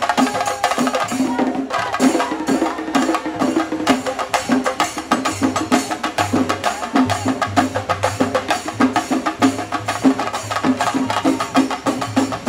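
Shingari melam: a troupe of chenda drums struck with sticks in a fast, dense, driving rhythm, with a gliding melody and deep bass notes sounding along with the drumming.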